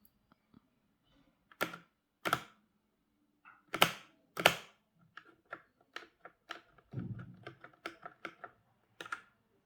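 Keys of a Redragon K628 Pollux mechanical keyboard being pressed: four separate louder clacks in the first half, then a quicker run of lighter keystrokes like typing, with one more near the end.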